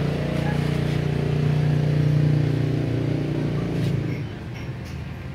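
A motor engine running steadily with a low hum, which drops away about four seconds in.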